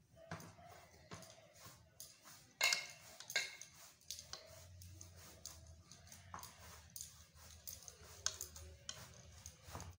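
A metal spoon clinking and scraping against a stainless steel plate of egg curry, in irregular light clicks and knocks, loudest a little under three seconds in.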